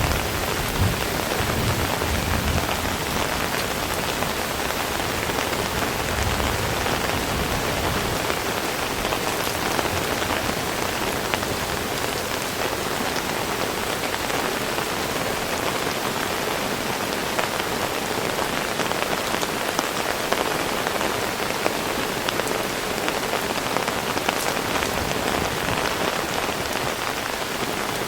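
Heavy rain falling steadily, a dense even patter of drops. A low rumble under it dies away over the first several seconds.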